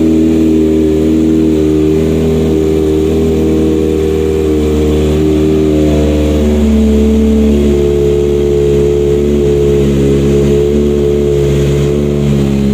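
Kawasaki ZX25R's 249 cc inline-four running at idle in neutral through an R9 full titanium exhaust as it warms up. The pitch is steady, shifting slightly a few times.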